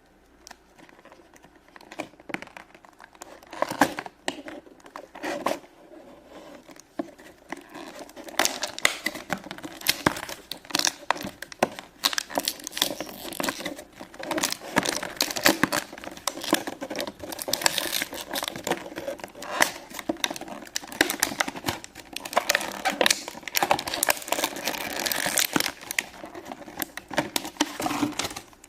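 Plastic and cardboard toy packaging being crinkled and torn open by hand, in scattered crackles at first and then a near-continuous run of crinkling from about eight seconds in.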